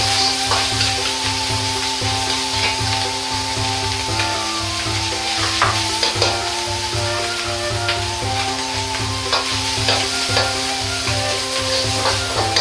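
Minced meat and shredded carrot sizzling steadily in hot oil in an iron wok as they are stir-fried. The metal ladle scrapes the wok and knocks against it a few times.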